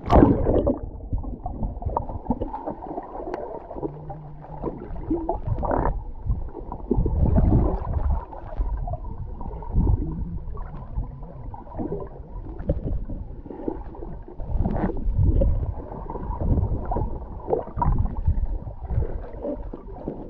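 Muffled underwater sound picked up by a submerged camera: water gurgling and rushing in uneven surges as a swimmer kicks, with a splash as the camera goes under at the start.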